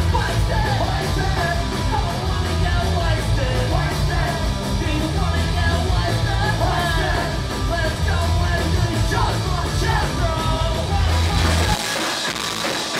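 Punk rock band playing live: distorted electric guitar, drums and yelled vocals. About twelve seconds in, the heavy low end drops out.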